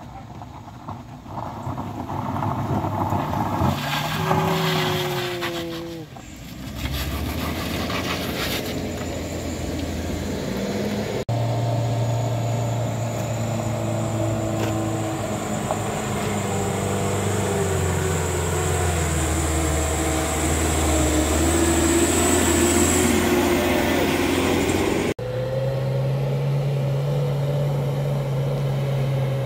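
Heavy truck engines straining up a steep, slippery climb, the revs dropping and then climbing again, with a thin high whine over the engine for about ten seconds in the middle. The sound cuts abruptly twice.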